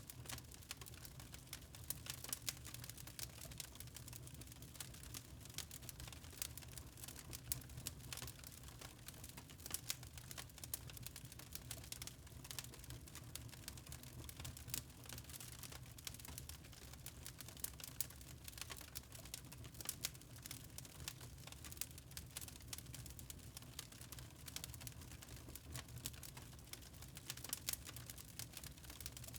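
Fire crackling in a fireplace: frequent irregular pops and snaps over a low steady rumble.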